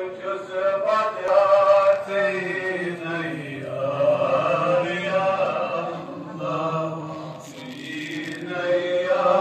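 Male devotional chanting, sung in long drawn-out notes that rise and fall in pitch, easing off briefly near the end before picking up again.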